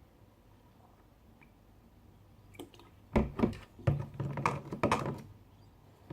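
Near silence, then from about three seconds in an irregular run of sharp clicks and knocks as glue slime is stirred with activator in a bowl, the utensil knocking against the bowl.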